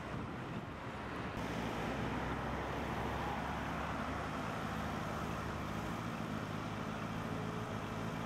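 Road traffic at a city junction: a steady noise of car engines and tyres, with a low engine hum coming in about a second and a half in.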